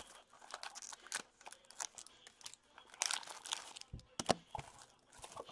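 Foil-wrapped hockey card pack and its box packaging crinkling and rustling in the hands, with a denser burst of crackling about three seconds in and a few sharp clicks a second later.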